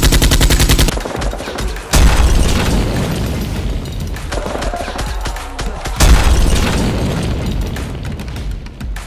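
A rapid burst of machine-gun fire that stops about a second in, then two heavy booms about 2 and 6 seconds in, each fading away slowly.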